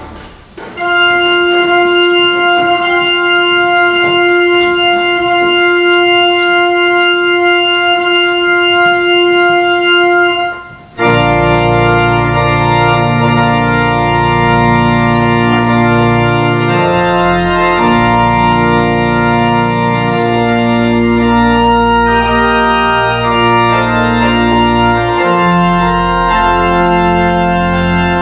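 Church organ playing: a single note held for about ten seconds, a brief break, then full sustained chords with deep bass notes, changing every few seconds.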